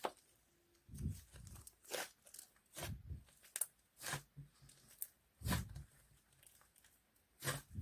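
Slime being squeezed and poked by hand, making irregular short pops and squelches with soft thuds.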